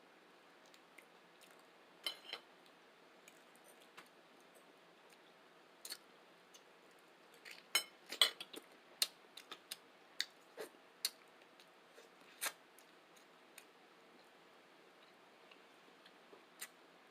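Eating sounds: scattered short clicks and smacks of chewing, with a cluster of them about eight seconds in.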